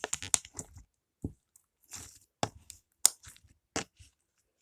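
Fluffy slime being worked into a swirl, its trapped air bubbles popping in irregular crackles and clicks, a dense run in the first half second, then single pops every half second or so.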